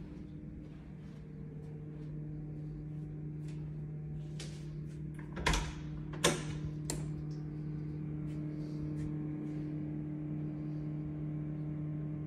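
A steady low hum, growing a little about two seconds in, with a few sharp knocks and clicks near the middle. The loudest two knocks come under a second apart.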